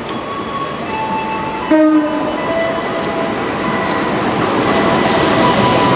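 A locomotive horn gives one short blast about two seconds in. Behind it the running noise of a train at the station grows louder toward the end.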